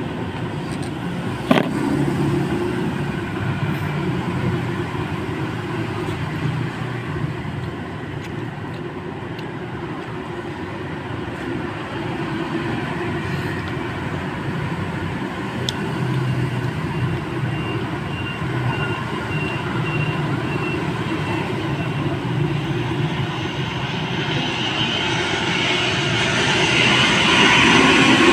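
Steady roadside traffic noise from passing motor vehicles, with one sharp click about a second and a half in. The noise grows louder over the last few seconds.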